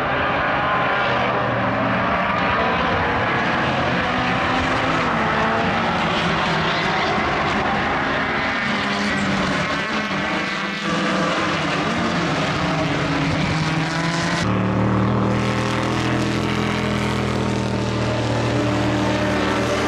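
Nissan Skyline GT-R R32 Group A race car's twin-turbo straight-six running at high revs on track, its note shifting with gear changes. There is a brief lift about halfway, and about three-quarters through the sound changes suddenly to a louder, deeper note.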